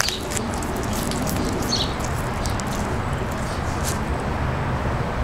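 Green iguana biting and tearing collard greens, a few short crunches and rips in the first couple of seconds and one more near the end, over a steady outdoor background hiss.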